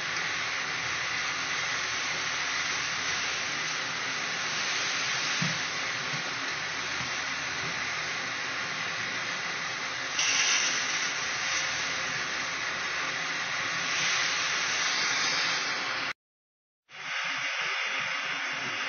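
Steady, loud hissing noise with little low rumble, swelling briefly about ten seconds in and again a few seconds later, with a short dropout to silence near the end.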